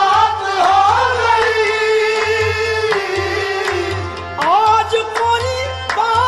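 Qawwali music: tabla keeps a pulsing beat under a sliding, ornamented melody line.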